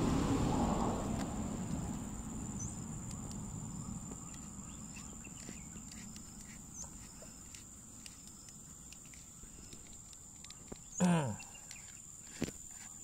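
A steady high insect drone, with soft rubbing and faint clicks as a plastic compression fitting is screwed by hand onto black poly pipe. About eleven seconds in, a short call falls steeply in pitch, and a sharp knock follows about a second later.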